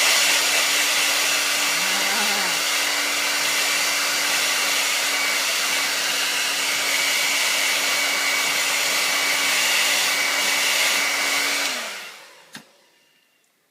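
Handheld blow dryer running steadily, a rushing airflow over a constant motor hum. About twelve seconds in it is switched off and winds down over about a second, followed by a faint click.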